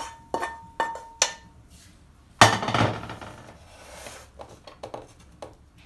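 A wooden spatula knocks three times against a metal wok, which rings briefly, as stir-fried vegetables are scraped out into a pot of rice. About two and a half seconds in comes a much louder clatter of the pan being set down, followed by softer taps and scrapes of the spatula stirring the vegetables through the rice in a metal pot.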